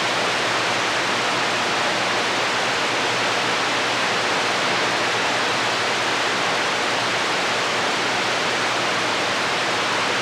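CB radio receiver hissing with steady static on an empty channel, no station transmitting, with a faint low hum under it.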